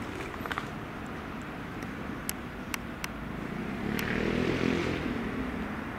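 Steady outdoor vehicle noise with a few sharp clicks. About four seconds in, a passing vehicle swells up and then fades.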